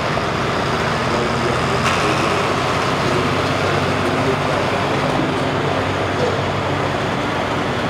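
Turbocharged International pulling tractor's engine idling steadily.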